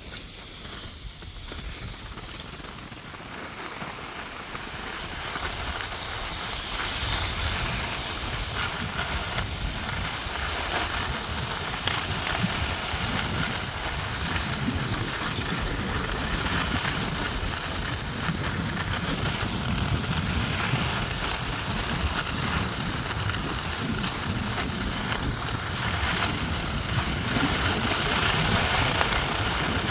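Skis hissing and scraping over groomed snow, with wind rushing over the microphone, growing louder over the first several seconds as the skier picks up speed, then holding steady.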